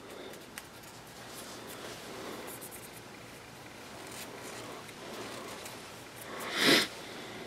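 Cotton-tipped applicator rubbing faintly around a pistol's steel rear sight and slide, mopping up excess thread locker. Near the end comes a brief, louder rush of noise.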